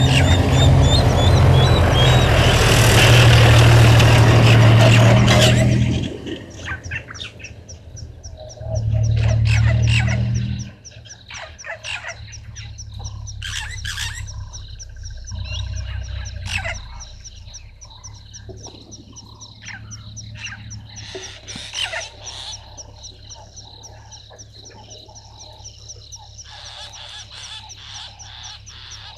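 Dusk waterhole ambience of birds calling and frogs croaking, with a steady rapid high chirping running underneath. A loud low humming noise covers the first six seconds and returns briefly about nine seconds in.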